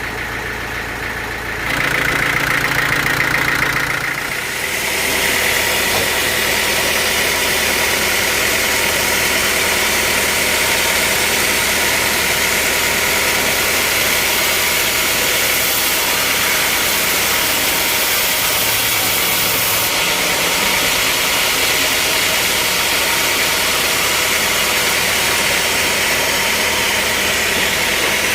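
Sawmill machinery running loud and steady. The sound shifts about two seconds in, and from about four and a half seconds settles into an even, hissing machine noise with a steady high whine.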